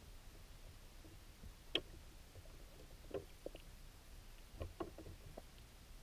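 Creek ambience heard underwater through a GoPro camera's waterproof housing: a faint, muffled low rumble with scattered light ticks and knocks, the sharpest a little under two seconds in.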